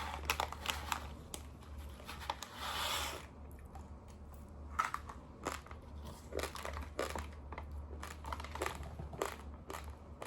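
Raw long-grain rice being chewed, with irregular sharp crunches. A rustling hiss fills the first three seconds.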